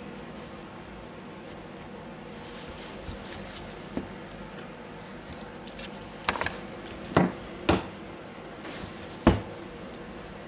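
Sharp handling clicks and light knocks of the DeWalt DCH273 rotary hammer's chuck parts as they are fitted onto the spindle by hand, about five in all, most of them in the second half.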